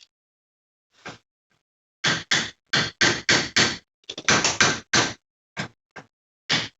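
About fourteen sharp knocks on metal in an uneven run, packed closest together in the middle seconds, with a faint ring in several of them.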